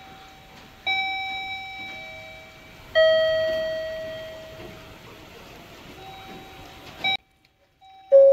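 Station public-address chime: two bell-like notes about two seconds apart, the second lower and louder, each ringing and slowly fading. The sound cuts off suddenly near the end and another chime begins.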